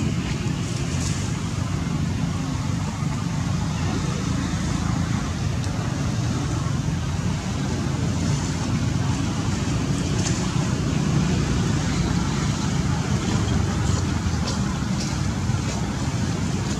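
Steady low rumble of outdoor background noise, with faint short high ticks now and then.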